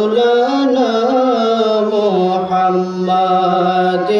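A man's voice chanting in the sung style of a Bangla waz sermon, drawing out long melodic notes with slow bends in pitch. The line steps down about two seconds in and breaks briefly near the end.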